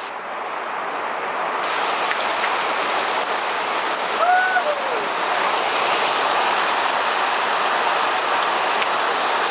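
Heavy rain pouring down in a steady hiss that swells over the first second or so, then holds. About four seconds in, a short tone rises and then falls over it.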